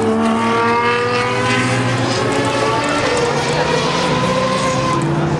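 Racing car engines running at high revs on the circuit, loud, their pitch rising slowly as the cars accelerate. A second, lower engine note joins about three seconds in.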